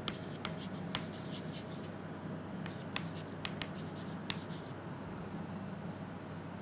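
Chalk tapping and scratching on a chalkboard as words are written in short quick strokes, stopping after about four and a half seconds. A steady low hum of room noise runs underneath.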